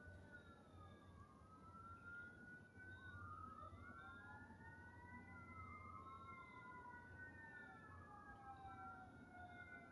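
Several faint wailing sirens, their tones slowly rising and falling and overlapping one another, over a low steady rumble.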